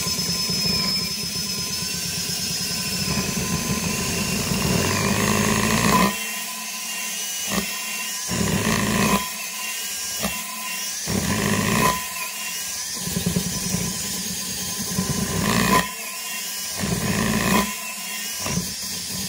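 DeWalt cordless drill spinning a brush attachment against the rusty metal hub of a washing-machine tub, scrubbing off rust. It runs steadily for about six seconds, then in a series of short bursts.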